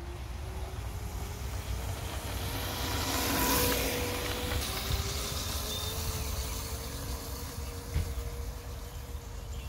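Razor MX350 electric mini dirt bike riding past, its electric motor whining steadily and its chain and tyres running on gravel. It is loudest about a third of the way in, then fades as it moves away, with a single click near the end.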